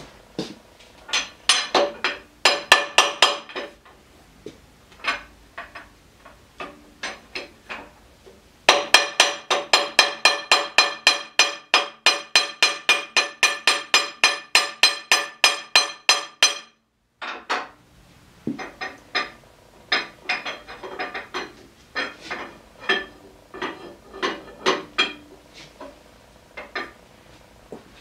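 Hammer blows ringing on metal at a lathe headstock, knocking at the spindle bearing of a Standard-Modern 10-inch lathe: scattered strikes, then a steady run of about three blows a second that cuts off suddenly, followed by more scattered blows.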